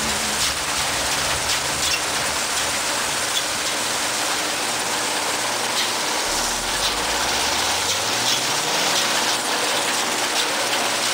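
Combine harvester at work cutting winter barley: a steady, dense rush of machine and crop noise with a faint engine hum underneath.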